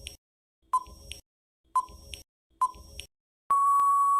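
Countdown timer sound effect: short beeps with a tick, about one a second, then a longer steady beep near the end that marks time up.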